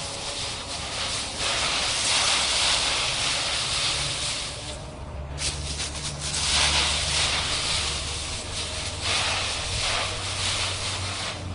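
Dry autumn leaves rustling and crunching as a dog bounds and burrows through a leaf pile, in surges that swell and fade, briefly dropping off about five seconds in.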